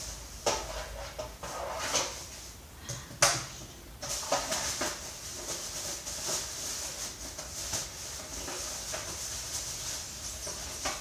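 Plastic vacuum cleaner parts being handled while the hose shroud is taken off: a few sharp knocks and clacks, the loudest about three seconds in, then a steady scraping rustle with small clicks.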